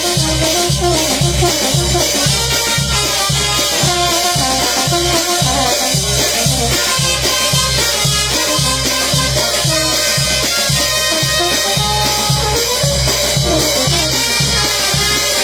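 A band playing an instrumental passage between the sung verses, with a steady even beat and melodic lines over it, no singing.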